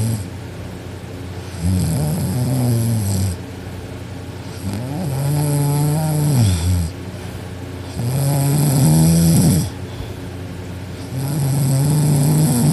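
A 14-year-old girl snoring loudly in deep sleep: four long, pitched, rasping snores, each about one and a half to two seconds, coming roughly every three seconds.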